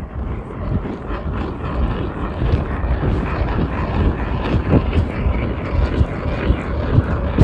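Hand-cranked ice auger drilling a fishing hole, its blades grinding and crunching through snow and ice as the handle is turned, with many short irregular crunches.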